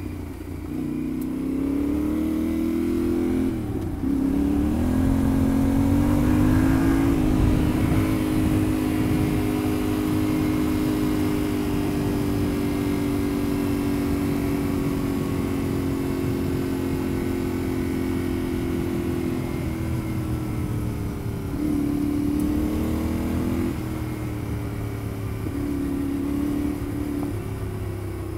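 Yamaha Ténéré 700's parallel-twin engine under way on a dirt road, pulling through the gears in the first few seconds and then holding a steady cruise. About two-thirds of the way through it eases off and picks up again.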